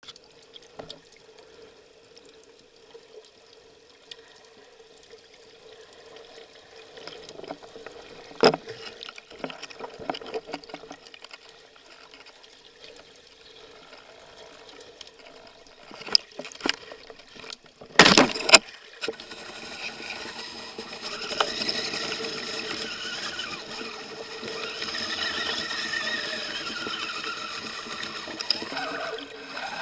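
Underwater sound in shallow sea water: quiet water with scattered clicks and a faint steady hum, a loud sharp double crack about eighteen seconds in, then a louder steady rush of water.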